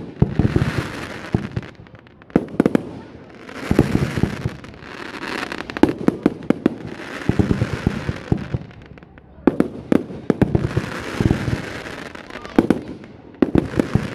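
Aerial fireworks shells bursting in the sky, a sharp boom every second or two, often in quick pairs. After each group of booms comes a hiss lasting a second or so.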